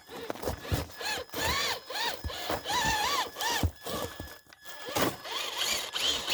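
RC rock crawler's electric motor and gears whining, the pitch rising and falling in quick throttle pulses about two or three a second, with a brief gap about four and a half seconds in.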